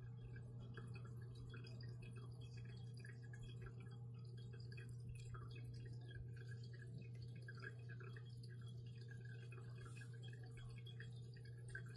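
Quiet room tone: a steady low electrical-sounding hum, with faint scattered small ticks and rustles.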